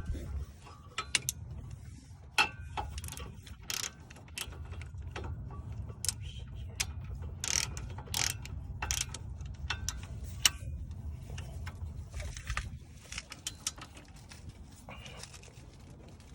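Ratchet wrench with a 17 mm socket clicking in irregular strokes as it tightens the brake caliper bolts.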